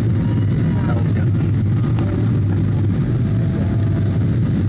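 Jet airliner cabin noise heard from a window seat in flight: a loud, steady low rumble of the engines and airflow that holds an even level throughout.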